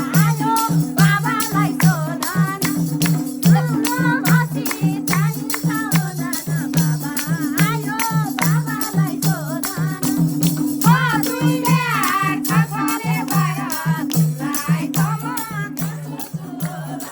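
Nepali dohori folk music: an instrumental passage between sung verses, a wavering melody line over a steady, driving beat of drum and rattling percussion.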